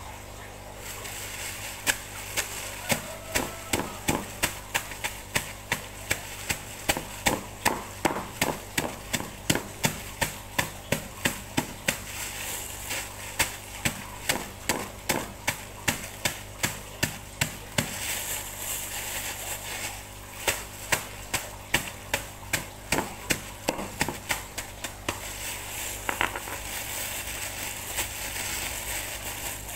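A stone pounding fish heads inside a plastic bag on a wooden log chopping block: a long run of sharp blows, roughly two or three a second, with the bag's plastic crinkling. Near the end the blows stop and only the plastic bag rustles as it is lifted.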